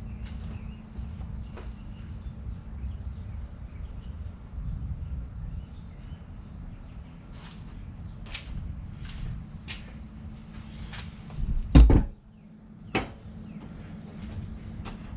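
Scattered clicks and knocks of hand tools and metal engine parts being handled during teardown of an ATV engine's top end, with one much louder knock about twelve seconds in and a smaller one a second later, over a steady low hum.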